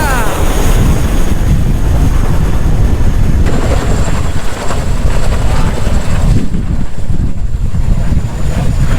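CH-47 Chinook tandem-rotor helicopter flying close, loud rotor beat and engine rumble with a thin steady high whine above it.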